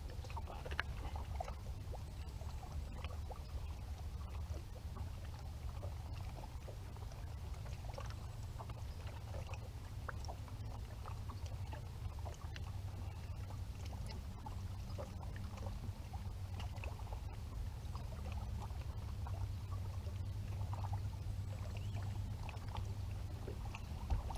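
Water lapping against a bass boat's hull with a low steady rumble, and scattered small splashes and knocks as a bass is lifted aboard and handled on the deck.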